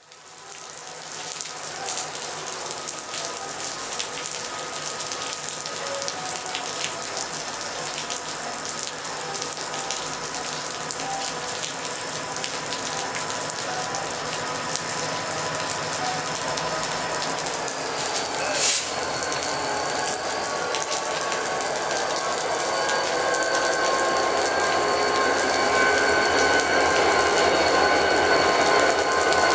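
Steady rain with many small drop ticks. Under it, a CSX freight led by EMD GP40-2 diesel locomotives approaches and grows gradually louder, its engines adding steady whining tones. A single sharp knock comes about two-thirds of the way through.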